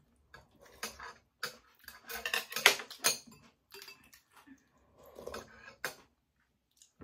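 Metal spoons and chopsticks clinking and scraping against a ceramic plate, a bowl and plastic food containers while two people eat, in irregular short clatters, loudest a little under three seconds in.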